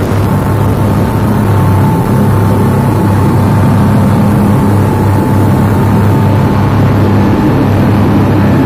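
Passenger speedboat running fast through rough water: a steady engine drone under a loud rush of water spray and wind breaking over the boat.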